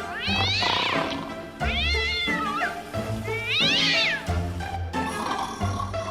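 Cat yowling in three long, drawn-out calls, each rising and then falling in pitch: the caterwaul of a cat at mating time. Background music plays throughout.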